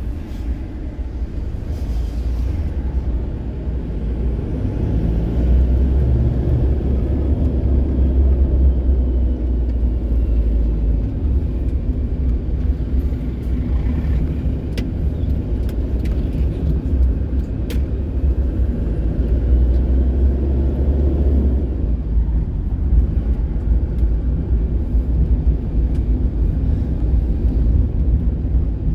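A car driving through town, heard from inside the cabin: a steady low engine rumble and road noise. The rumble grows louder for a few seconds twice.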